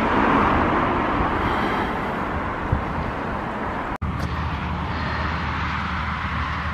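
Steady outdoor background rush, like distant road traffic and air moving past the microphone, with no distinct event. It breaks off briefly about four seconds in and comes back steadier, with more low rumble.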